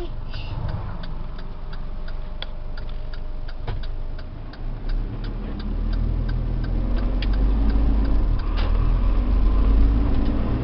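Truck engine and road noise heard from inside the cab while driving, with many light clicks scattered through it. The low rumble grows deeper and louder about halfway through.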